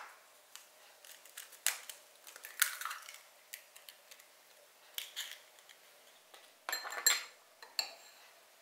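Light clicks and taps of an eggshell being pulled apart over a small glass bowl, then a metal spoon clinking against the glass bowl a few times, with a brief ringing, about seven seconds in.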